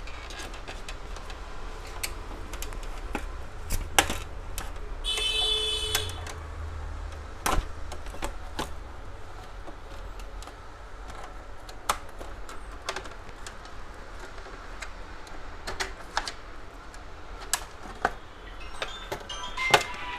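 Scattered clicks and knocks of the plastic casing and tools as the front cover of an HP LaserJet P1007 laser printer is unclipped and taken off, with a brief squeak about five seconds in.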